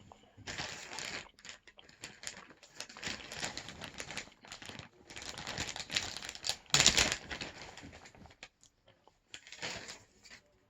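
Crinkling and rustling close to the microphone, in patches of a second or so, with a sharp louder click about seven seconds in.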